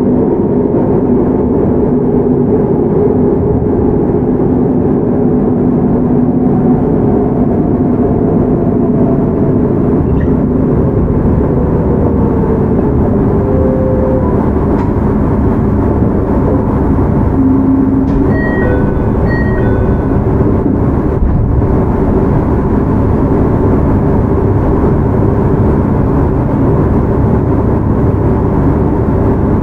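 JR Hokkaido 731 series electric train (motor car MoHa 731-114) running at speed, heard from inside the car: steady wheel-and-rail rumble with the hum of its Hitachi IGBT VVVF inverter and traction motors. Two short high dings sound about two-thirds of the way through.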